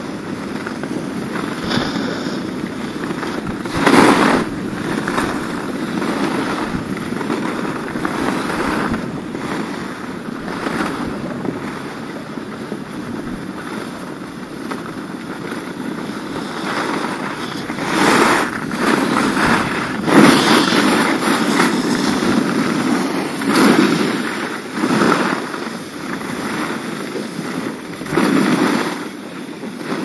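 Skis sliding and carving down a groomed piste, with wind rushing over the camera microphone. The ski edges scrape louder in several surges at the turns.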